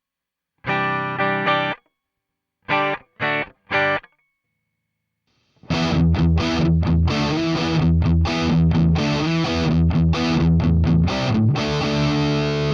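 Electric guitar played through the Flamma FG200 pedal's amp models: a few short chord stabs, each cut off sharply, then a pause. About halfway through, a denser distorted riff starts, with rhythmic choppy gaps, as the next amp model is sampled.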